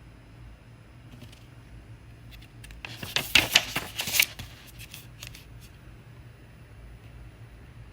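A paper book page being turned: a crisp rustle and crackle of paper lasting about a second and a half, near the middle.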